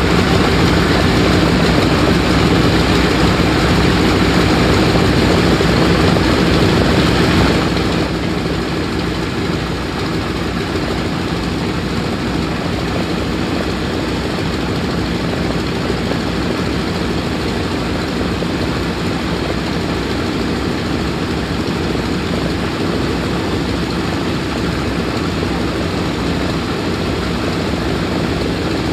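Two radial engines of a B-17 bomber, out of its four 1820 nine-cylinder radials, running on the ground with their propellers turning. The sound is loud and steady, then settles to a quieter, lower running about eight seconds in.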